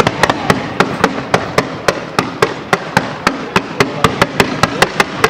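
Fireworks comets launching from the ground in fan-shaped volleys. They fire in a rapid, even run of sharp reports, about four a second.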